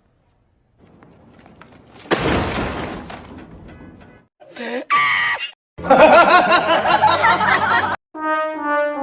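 A string of short meme sound effects cut one after another: a sudden crash that fades out, a brief squeal-like voice, a loud wavering voice like screaming or laughing, then brass notes stepping down in pitch near the end.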